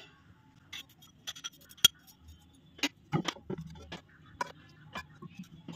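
Glass dessert bowls and serving utensils clinking lightly as they are handled, a scatter of short ticks and taps with the sharpest about two seconds in and a cluster between three and five seconds.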